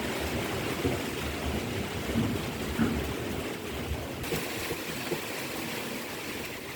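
Wind buffeting the microphone outdoors: an uneven rumbling rush with gusts rising and falling.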